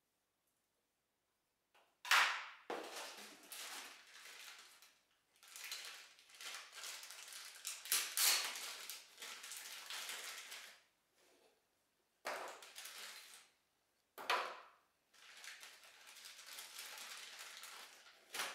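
Clear plastic parts bag crinkling and crackling as it is handled and opened, in irregular bursts, each starting with a sharp crackle.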